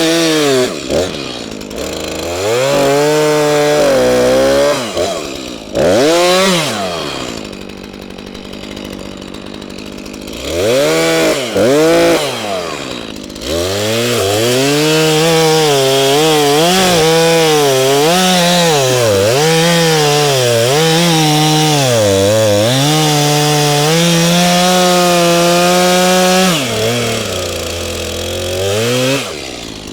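Gas chainsaw cutting up felled trees, its engine revving high and sagging in pitch again and again as the chain bites into the wood, and dropping to a lower, quieter running speed between cuts.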